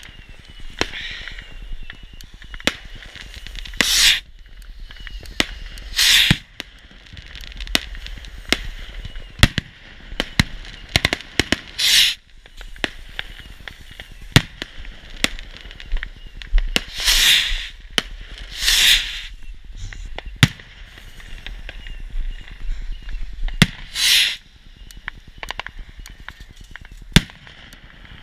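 Fireworks going off: a steady scatter of sharp pops and cracks, with several louder bursts every few seconds.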